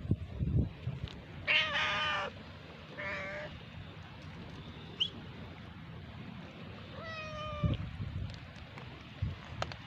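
Cat meowing three times: a long meow about a second and a half in, a shorter one soon after, and another long meow about seven seconds in. A few low thumps come just before the first meow.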